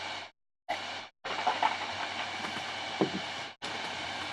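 Steady hiss and low hum of recording noise, cutting in and out abruptly as a noise gate opens and closes, with a few faint clicks.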